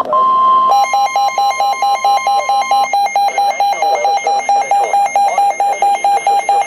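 Emergency alert attention tones: a steady single-pitch tone stops under a second in and gives way to a loud, rapid electronic beeping alarm, about four beeps a second. A faint voice sits under the beeping.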